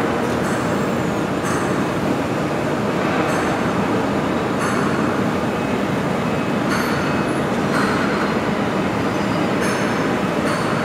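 Steel tube processing line running: a steady, loud mechanical rumble with short, high metallic squeals and scrapes every second or two as the tubes move along the roller line.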